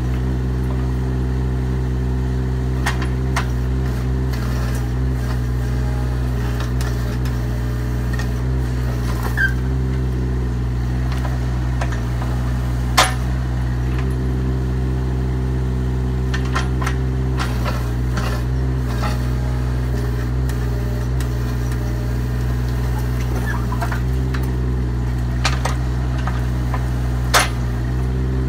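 Bobcat E20 mini excavator's diesel engine running steadily while the machine digs, with occasional sharp clanks as the steel bucket works through hard slag fill; the loudest clank comes about halfway through and another near the end.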